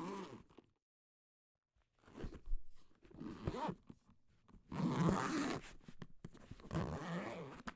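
Zipper being pulled in several quick runs: one ends just after the start, and after about a second of silence come a couple of pulls, then a longer run of pulls in the second half.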